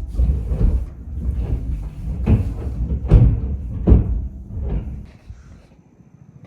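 Roof replacement work on the house: a series of heavy bangs and thuds, roughly one a second, over a low rumble, the banging and tearing of old roofing being torn off and new roofing put on. The noise dies down near the end.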